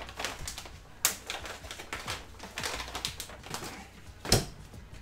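Plastic pouch crinkling as it is rolled and folded shut, a run of sharp, irregular crackles, then a single thud a little after four seconds in.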